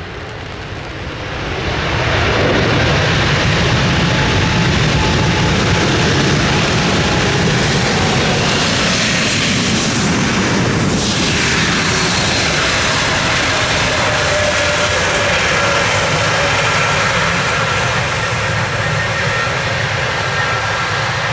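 Airbus A320neo airliner with Pratt & Whitney PW1127G geared turbofan engines coming in to land. The jet noise swells loud about two seconds in, sweeps past near the middle as the aircraft goes by, then settles into a steady rush with high whining fan tones.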